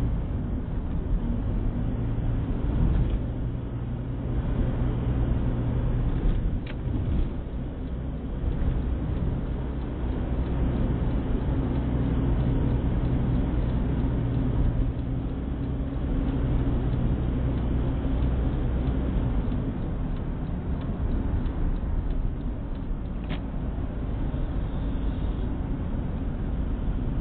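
Car engine and road noise heard from inside the cabin while driving: a steady low hum that eases off about two-thirds of the way through, with two brief faint ticks.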